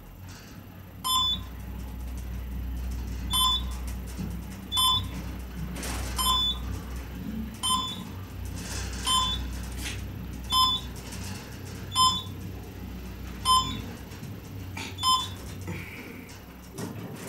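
Schindler elevator car travelling up: a short electronic floor-passing beep sounds as each floor goes by, ten times at about one-and-a-half-second intervals, over the low hum of the car in motion. The hum dies away shortly before the last beep as the car arrives.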